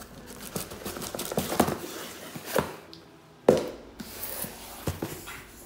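Cardboard boxes handled and set down on a table: rustling cardboard with several knocks, the loudest about three and a half seconds in.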